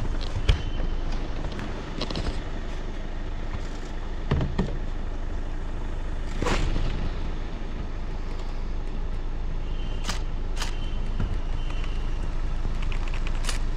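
Car engine running with low road rumble as the car moves slowly, heard from inside with the window open. A few sharp clicks cut through it, the loudest about six and a half seconds in.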